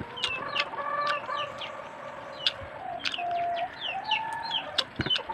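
Chickens clucking and calling, with many short, high, falling bird chirps several times a second and a few sharp clicks.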